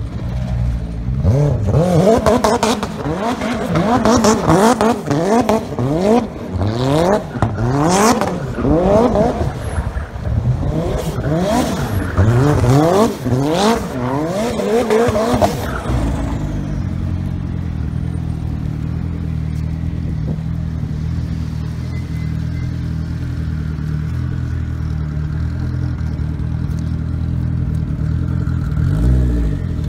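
A performance car's engine revving hard up and down again and again as it is driven around the lot, with a few short sharp noises that may be tyre squeal; about halfway through the revving stops and an engine idles steadily.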